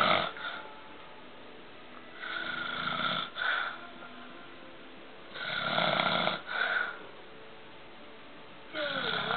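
A man snoring in his sleep, one rasping snore about every three seconds, each ending in a short second catch.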